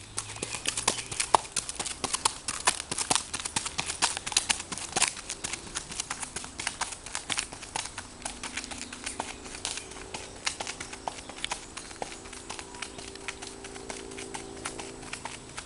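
Hooves of a Norwegian Fjord horse clip-clopping on a gravel drive under a rider: a quick, uneven patter of crunching hoof strikes that grows fainter as the horse moves away.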